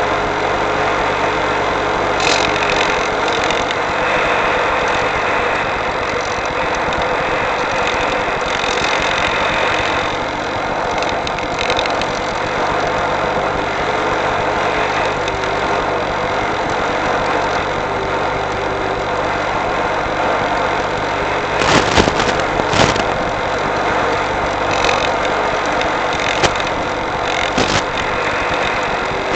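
Steady rushing drone with a low hum, heard through the RC glider's onboard FPV audio in flight, with a few sharp static crackles in the last several seconds as the radio link breaks up.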